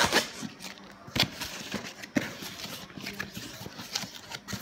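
Cardboard shipping box and its packing being opened and handled by hand: scattered knocks and rustles, a few sharp ones about a second apart.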